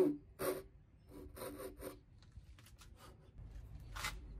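Japanese hand saw making short, shallow strokes across a board's marking line: two rasping strokes at the start, lighter ones for about another second, then a pause and one more short stroke near the end.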